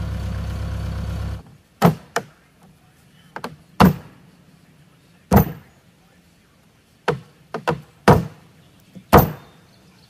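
A tractor engine idles briefly and cuts off abruptly. Then come about ten heavy, irregular thuds of footsteps and stomps on a white oak plank dock deck as it is tested underfoot.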